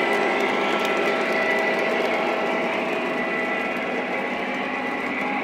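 Lionel O-gauge model trains running: a steady mechanical whir of locomotive motors and gears with wheels rolling on the track, a few steady whining tones running through it.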